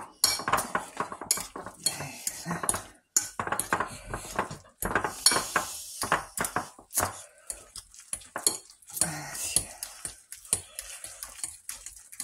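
A metal utensil scraping and clinking against a ceramic bowl in quick, irregular strokes as mashed potato is stirred together with egg and butter, with a few brief pauses.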